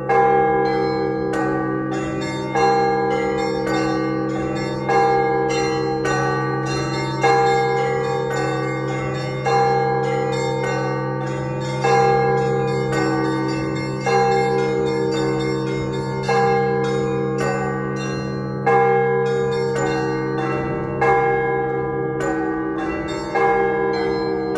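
Orthodox church bells ringing in a full peal. A heavy bell is struck about every two and a half seconds under a sustained low hum, while smaller bells chime rapidly in between.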